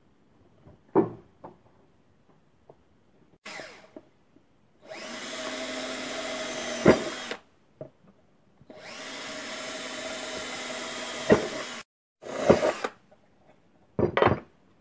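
Hand-held power drill boring holes into an aluminium plate: two steady runs of about two and a half and three seconds, each with a sharp crack near its end. Short spurts of the drill come before and after, with a few knocks early on.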